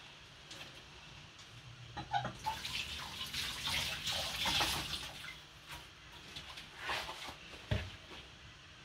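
Water running from a kitchen tap for about three seconds, starting a little after two seconds in, with knocks and clatter of kitchen things around it and a sharp thump near the end.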